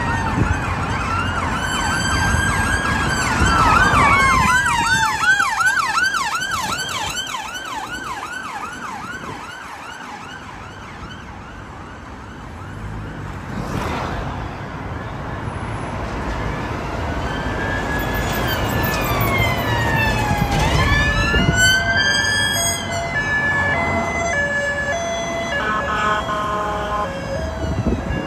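Fire engine sirens passing in traffic. A fast yelp warble runs for the first several seconds. After a quieter stretch, slow rising and falling wails come in about two-thirds of the way through, then a two-tone high-low pattern near the end, all over steady road traffic noise.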